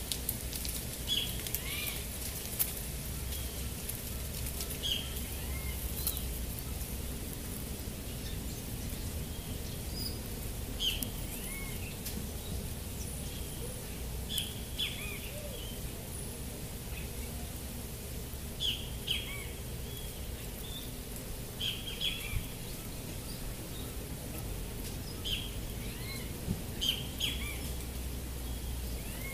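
Small birds giving short chirps every few seconds, often two or three close together, over a steady rush of falling water from a waterfall.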